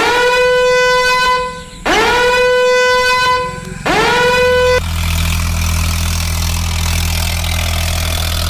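Three long horn blasts, each swooping up in pitch at the start and then holding one steady note. After them comes a steady low rumble with hiss, like a running engine.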